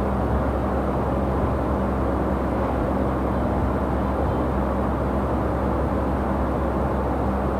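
Steady machine hum with an even rushing noise underneath, unchanging throughout.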